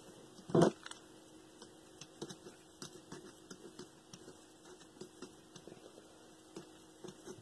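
Faint, scattered clicks and taps of small pump parts being handled and fitted as a new seal goes into a circulator pump's bearing housing, with one louder thud about half a second in.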